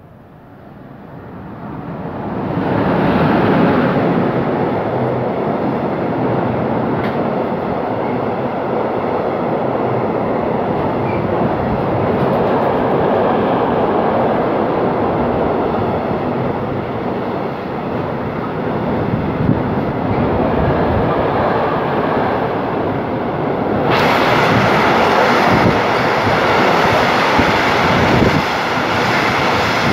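A train running past on the station track: the rail noise builds over the first three seconds, then a long, steady rumble of wheels on rails. It turns suddenly hissier about 24 seconds in and eases off near the end.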